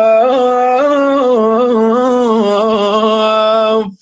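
A man singing unaccompanied, holding long ornamented notes that waver and bend in pitch, in the drawn-out 'ouf' style of an Iraqi mawwal. The voice breaks off briefly near the end.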